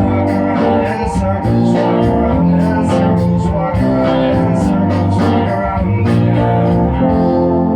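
Band music with guitar, bass and drums; the drums drop out near the end and the sound thins.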